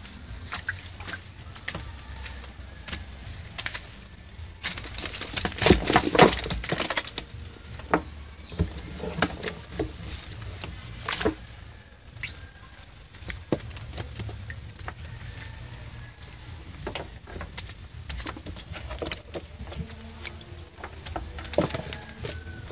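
Wet collapsible shrimp-trap netting being handled and shaken out over a styrofoam box: irregular knocks, clicks and rustles, with a louder, denser stretch of shaking and falling catch about five to seven seconds in. A steady high tone runs underneath.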